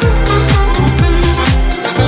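Background music: an electronic dance track with a steady beat and deep bass.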